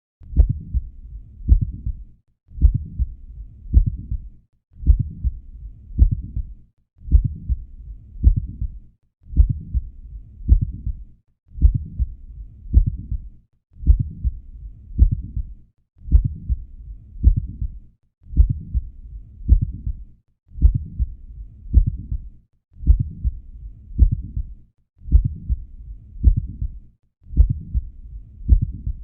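Heart sounds heard through a stethoscope: sharp low beats with a continuous murmur filling the spaces between them. A clip of about two seconds is played over and over, with a short silent break between repeats.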